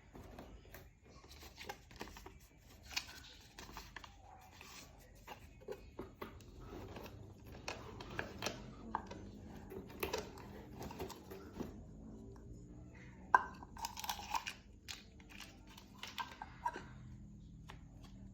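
Unboxing handling noise: packaging rustling and tearing, with scattered small clicks and knocks and one sharper knock about two-thirds of the way through.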